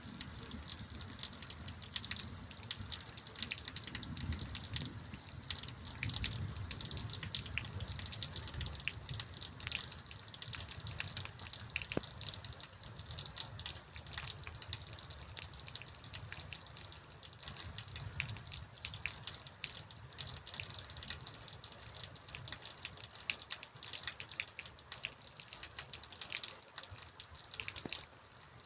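Rain falling steadily, with many close drops and drips ticking irregularly over a continuous hiss. A low rumble underneath fades out about halfway through.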